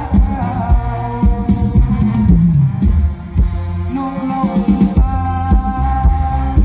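Amplified live band music: a singer's melodic line, with a long held note in the second half, over heavy bass and a steady drum beat.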